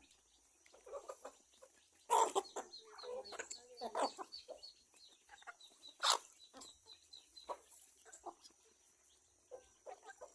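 Chickens clucking in short, irregular calls, a few of them louder, about two, four and six seconds in.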